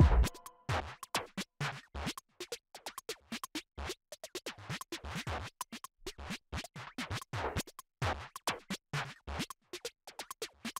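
Background electronic music: the melodic part cuts off right at the start, leaving a sparse beat of short, sharp percussive hits with near-silent gaps between them.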